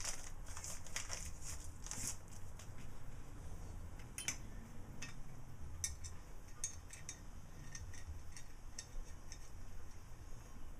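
Light, irregular metallic clicks and taps of small steel hardware being handled: a nut put onto a threaded rod and metal plates and tubes knocking together during assembly.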